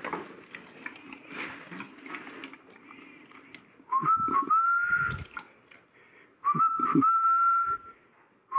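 A person whistling two long notes, each sliding up at the start and then held steady for about a second, the first about four seconds in and the second about six and a half seconds in. Before them, soft ticks and shuffling.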